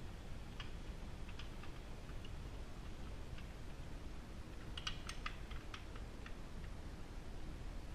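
Scattered light clicks and taps, with a quick run of clicks about five seconds in, from parts being handled and slipped back into place while reassembling a large-scale RC car's engine.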